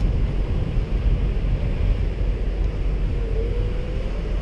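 Wind rumbling on the microphone, with the electric motor of an RC speed boat (a TFL Ariane 2 on 6S batteries) running out on the water. Its faint whine comes in about three seconds in and rises slightly in pitch.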